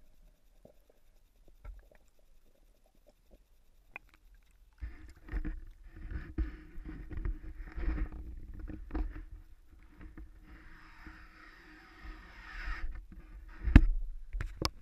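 Handling noise on an action camera's waterproof housing as it is lifted out of pond water. A few faint clicks are followed, about five seconds in, by irregular muffled knocks and rubbing with a low rumble, and there is one loud sharp knock near the end.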